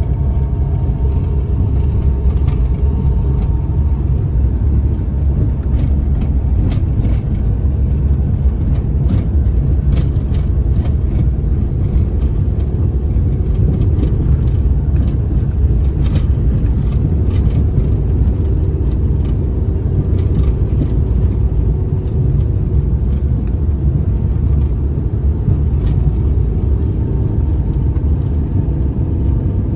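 Car engine and tyre noise heard from inside the cabin while climbing a steep road: a steady low rumble, with scattered light knocks and rattles as the car runs over the rough, patched surface.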